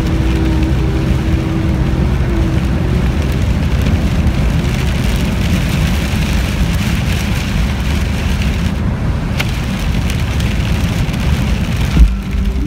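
Steady road rumble and rain noise inside a car driving on a wet road, rain spattering the windscreen, with one sudden loud thump near the end.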